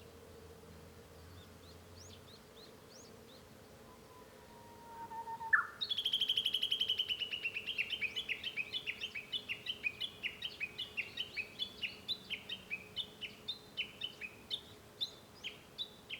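Japanese bush warbler (uguisu) singing. A long low whistle ends in a sharp upward flick, then a long series of quick repeated notes follows, about three a second, running on to the end.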